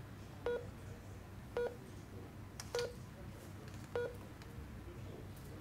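Four short electronic beeps from a smartphone's gesture-calibration app, evenly spaced about once a second. Each beep is feedback confirming that the wristband has detected an index-finger tap gesture.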